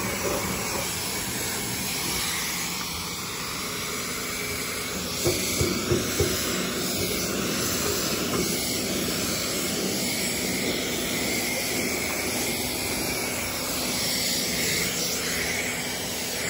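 Pressure washer gun spraying a steady, hissing jet of water against a trailer's panels, rinsing off a foamed-on wax replacement. A few short thumps come about five to six seconds in.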